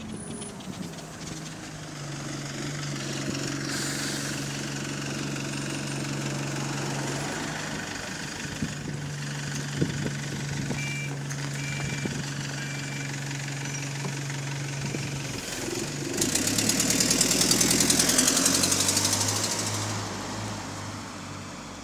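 Single-deck diesel bus engine idling with a steady low hum, then pulling away about sixteen seconds in, getting much louder with a fast rattling buzz for a few seconds before fading. The rattle is the sign of a loose exhaust.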